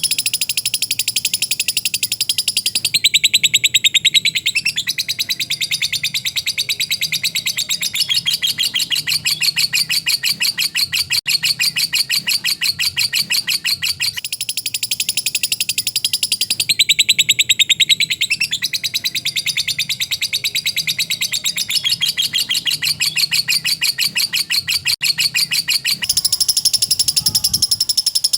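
Lovebird singing a long 'ngekek' chatter: a very fast, unbroken run of high, sharp notes that changes tone a few times.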